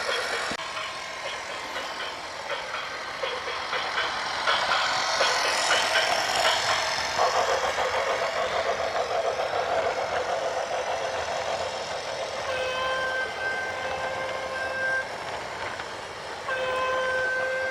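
Vehicle and machinery noise with clattering, and a horn sounding twice in the second half, each blast two to three seconds long.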